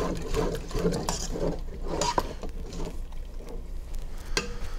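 A spoon stirring soup stock in an enamelware stockpot, scraping the flour roux off the bottom in repeated strokes, with a few sharp clicks of the spoon against the pot.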